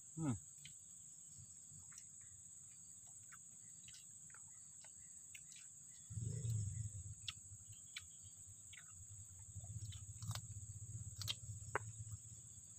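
Steady high-pitched drone of insects such as crickets, with scattered faint clicks. A low rumble comes in about six seconds in and again near the end.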